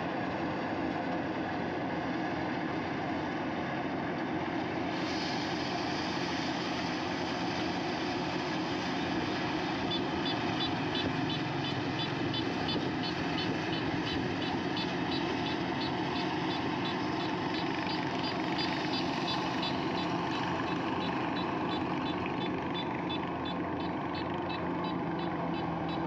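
Kubota combine harvester running at work cutting and threshing rice: a steady diesel engine and machinery drone. A fast, faint high ticking joins about ten seconds in.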